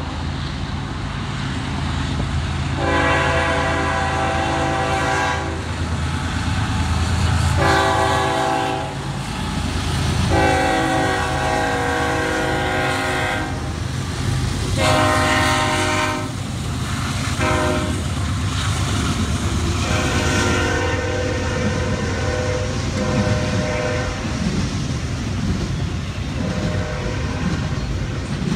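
BNSF diesel freight locomotives sounding their air horn in a series of long and short blasts for a road crossing, over the low rumble of the passing engines. The double-stack container cars follow, rolling past near the end.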